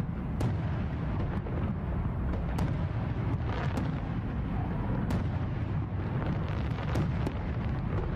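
A steady low rumble with sharp crackles scattered through it, about one every second.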